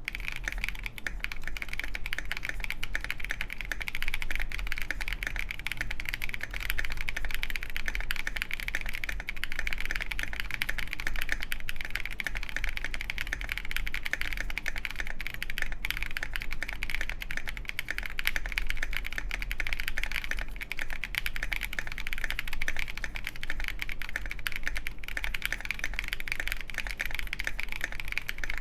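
Continuous fast typing on a custom KindleStar Orion 87 mechanical keyboard with lubed Boba U4T tactile switches, a polycarbonate plate, case foam and KAT Mizu keycaps: dense, muted keystrokes with no spoken words. A faint steady low hum sits under the typing.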